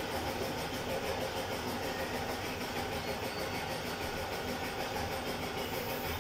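Air compressor for a spray gun running steadily, a constant mechanical hum with hiss that stays level throughout.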